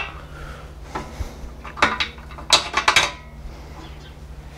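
A handful of sharp metal clinks and knocks as a greased steel shock bolt is handled and fitted through the rear shock mount. Most of the clinks fall about two to three seconds in.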